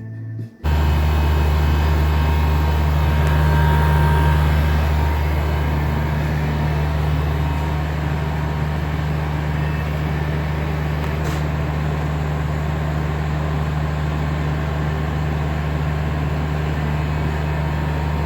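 Window-type air conditioner running on the bench while being charged with refrigerant: a loud, steady compressor and fan hum with a hiss of airflow. It starts suddenly about half a second in.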